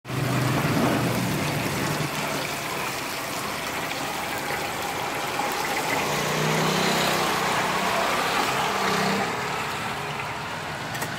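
Hot oil sizzling steadily in a frying pan as battered pieces deep-fry, with a low hum underneath.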